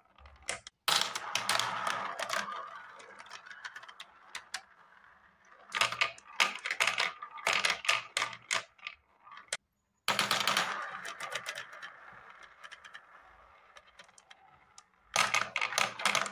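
Marbles clattering onto a plastic spiral-funnel marble run in quick runs of clicks. They then roll round the swirl bowl with a rolling rumble that fades as they spin down to the centre hole. This happens four times, about every four to five seconds.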